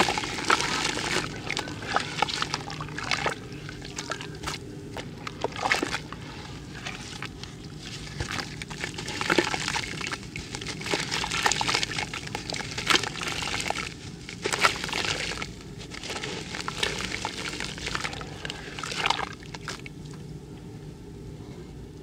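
Dry, crumbly clumps being crushed by hand and dropped into a bucket of water: irregular crunching and crackling mixed with splashing, sloshing and powder pouring into the water. The sounds thin out near the end.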